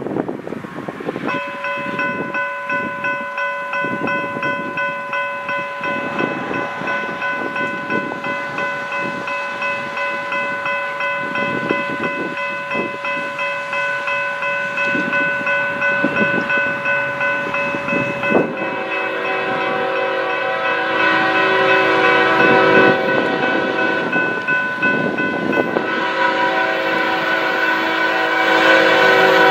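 Diesel freight locomotive air horn sounding one long steady chord for about 17 seconds over the approaching train's rumble. It then switches abruptly to a different horn with a lower, fuller chord, blown in two long blasts.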